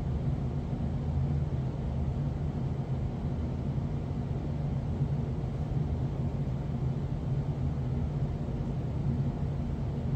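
Steady low mechanical hum with a few constant low tones and a faint hiss above it, unchanging throughout.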